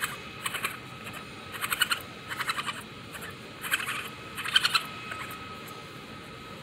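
Baby raccoon chittering while bottle-feeding: about five short bursts of rapid, high-pitched pulsing calls.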